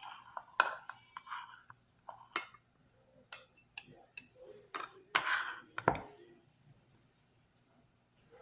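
A spoon clinking and scraping against dishes as leftover cooked rice is scooped out and measured, a string of sharp clinks with one longer scrape about five seconds in, then it goes quiet.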